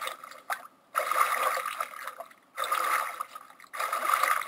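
Water splashing in three loud surges, each about a second long, roughly every one and a half seconds, like swimming strokes through the water.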